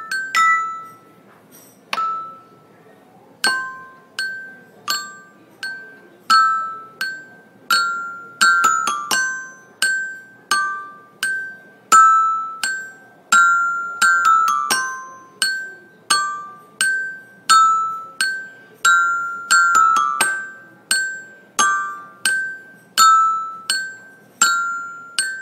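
Background music: a bright mallet-percussion melody like a glockenspiel, single struck notes that ring and fade, about one or two a second. After a short near-pause with one lone note, the melody picks up and runs on steadily.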